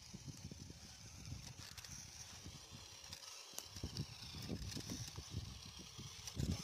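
RC rock crawler car driving over rough ground, with irregular low knocks and crunches throughout over a faint steady high hum.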